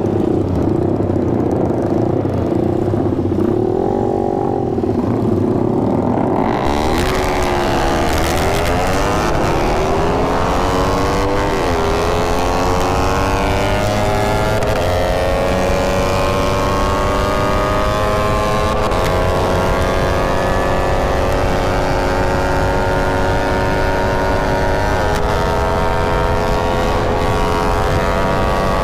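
Suzuki Satria FU's 150 cc single-cylinder engine running slowly with a brief rev about four seconds in. About six and a half seconds in it accelerates hard, its pitch climbing and dropping back at each of several upshifts, with wind rushing over the microphone.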